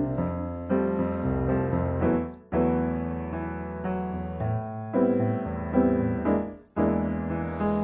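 Jazz piano playing a slow run of sustained chords without the singer, broken twice by a brief gap of silence, about two and a half and six and a half seconds in.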